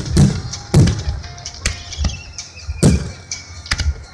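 Aerial firework shells bursting in quick succession, about five sharp bangs roughly a second apart, each trailing into an echoing rumble.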